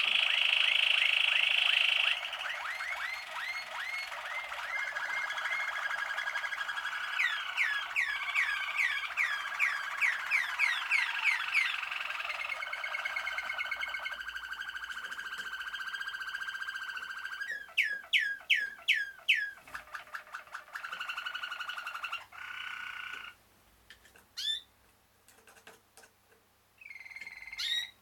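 Malinois (Waterslager) song canaries singing: long rolling trills held on one pitch, broken by runs of quick sweeping notes, about three or four a second. Near the end the song thins to short phrases with gaps between them.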